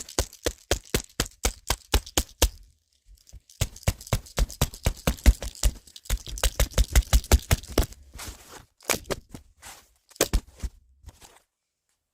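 A rapid series of sharp clicks or taps, about four to five a second, in three runs with short pauses between them, thinning out to scattered clicks near the end.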